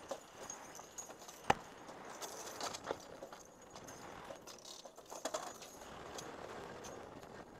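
Metal clinking and rattling of a linked belt of .50-calibre machine-gun cartridges being handled and fed to the gun, with scattered clicks and one sharp click about a second and a half in.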